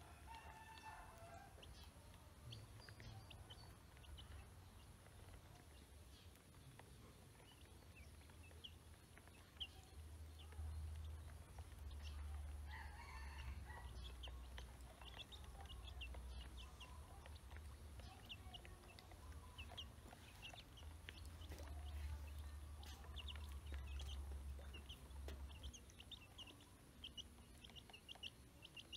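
Ducklings peeping faintly: short high chirps, sparse at first and coming thick and fast in the second half.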